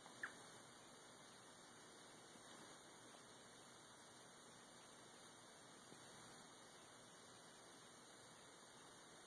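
Near silence: a faint steady hiss of recording noise, with one brief sharp tick about a quarter second in.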